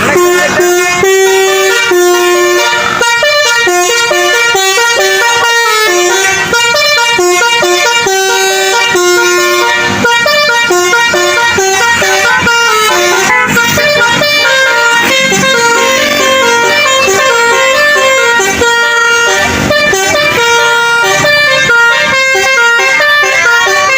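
Indonesian 'telolet' bus horn: a basuri-style musical air horn driven by a DAV voice module, playing a loud, continuous melody of quickly changing notes.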